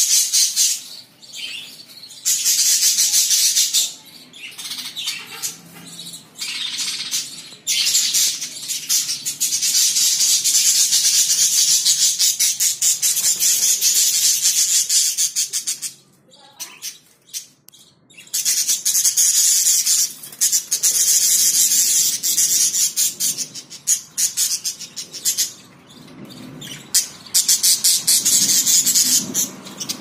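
A flock of budgerigars chattering and warbling: dense, fast, high-pitched chirping in spells of a few seconds with short lulls, dropping almost to nothing for a couple of seconds a little past halfway.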